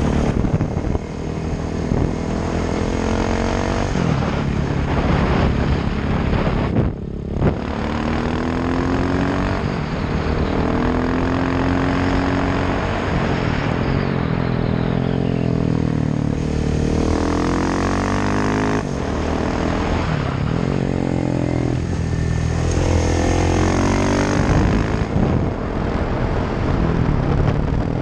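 KTM 690 SMC R's single-cylinder engine, breathing through a Sebring exhaust with no dB-killer, heard on board as the bike is ridden. The engine note rises and falls again and again as the throttle opens and closes through the bends, with a brief break in the sound about seven seconds in.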